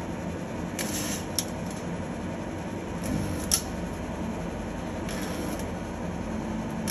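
Mobile spot welder joining galvanized wire mesh to a galvanized pipe: three short hissing bursts about two seconds apart, two of them followed by a sharp snap, over a steady background hum.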